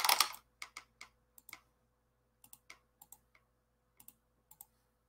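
Typing on a computer keyboard: scattered, irregular key clicks, with a louder burst of noise right at the start.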